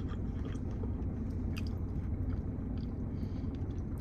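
A person chewing and biting into KFC takeout food (potato wedges and barbecue chicken), with faint wet clicks and crunches over a steady low hum.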